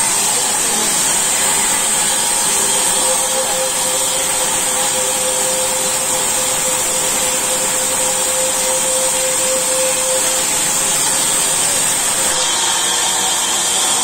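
Large vertical log band saw ripping a log lengthwise, a loud, steady run of blade and motor noise with a held tone through the middle of the cut.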